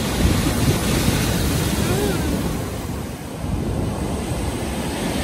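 High-tide waves breaking and washing against a sea wall, with wind rumbling on the microphone.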